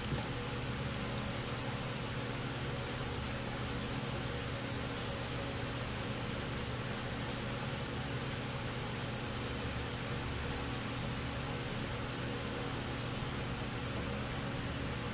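Fine abrasive sheet on a hand sanding block rubbing back and forth over primer on a plastic model hood, a long run of quick, short strokes that stops near the end, over a steady low hum.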